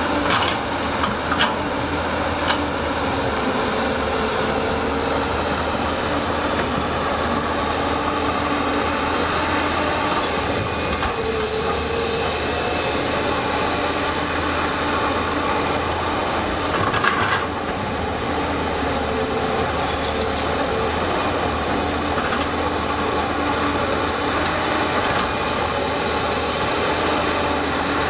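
Excavator diesel engines running steadily, with a few sharp knocks in the first few seconds and another about seventeen seconds in.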